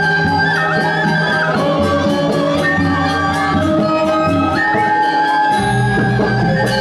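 Balinese gamelan playing for a Telek dance: long held, flute-like melody notes that step up and down over a quick, even beat of bright, cymbal-like strikes. The deep notes drop away for a moment about five seconds in, then come back stronger.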